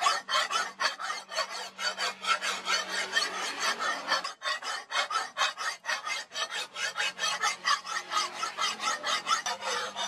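A hand file rasping back and forth across a steel knife blade in quick, even strokes, about four a second, with one short pause a little before the middle.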